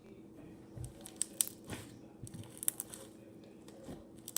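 Slime being squeezed and pulled by hand, giving irregular sticky pops, clicks and crackles.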